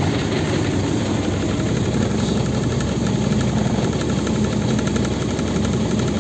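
The ELEX81A's engine idling steadily just after being started, heard from inside the cab.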